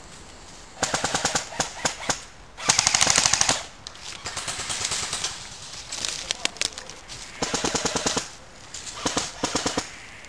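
Airsoft guns firing in rapid full-auto bursts of clicking shots, about six bursts with short gaps between them; the loudest and densest burst comes about three seconds in.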